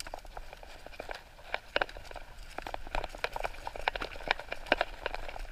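Irregular clicks and knocks, several a second, over a low rumble.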